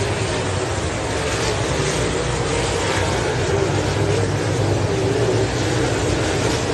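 A pack of dirt-track race cars running laps together, their engines blending into one loud, steady drone.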